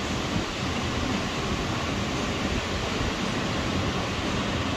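Steady rushing of surf breaking along the beach, mixed with wind, an even wash of noise without any distinct events.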